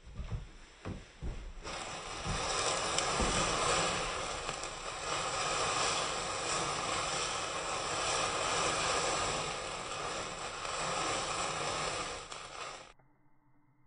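A few low pops from a burning magnesium ribbon fuse, then iron(III) oxide–aluminium thermite igniting about two seconds in and burning with a steady, dense fizzing hiss as it throws sparks. The sound cuts off sharply near the end.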